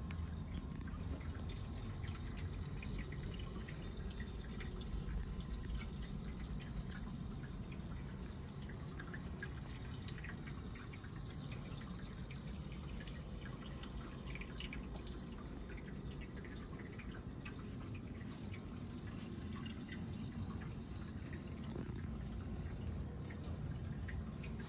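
Faint, irregular dripping or trickling water over a steady low hum.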